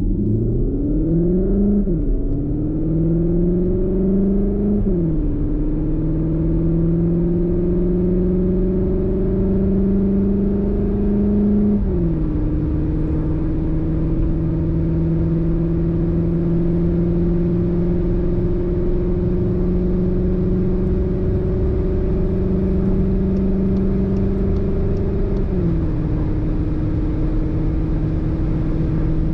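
The CUPRA Leon Sportstourer e-Hybrid's 1.4-litre turbocharged four-cylinder TSI engine, heard inside the cabin under full-throttle acceleration. Its pitch climbs through each gear and drops at four quick upshifts of the six-speed DSG, about 2, 5, 12 and 25 seconds in. The pitch rises more slowly in the longer upper gears.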